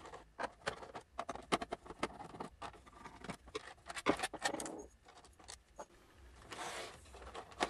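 Screws being taken out of the underside of a Sinclair QL's plastic case: a run of small, irregular clicks and scrapes from the screwdriver and loose screws, with a short scratchy rustle near the end.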